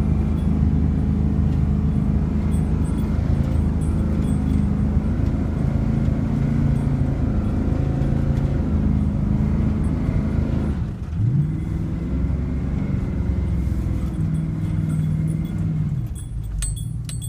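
1978 GMC Stepside pickup's engine running under throttle while the truck spins donuts in snow, heard from inside the cab; its pitch shifts as the throttle changes, dipping and then revving up briefly about two-thirds of the way through. A few sharp clicks near the end.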